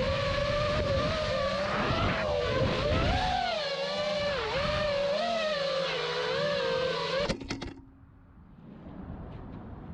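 FPV racing quadcopter's T-Motor F40 IV brushless motors and propellers whining, the pitch wavering up and down with the throttle. About seven seconds in the whine cuts off abruptly with a few clicks, leaving only faint background noise.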